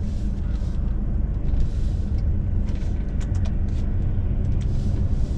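Lorry engine and road noise while driving: a steady low rumble, with a few light clicks a little past halfway.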